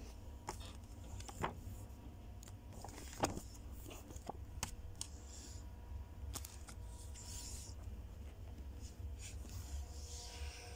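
Paper timetable leaflets being handled and shuffled: scattered light clicks and short rustles over a steady low rumble.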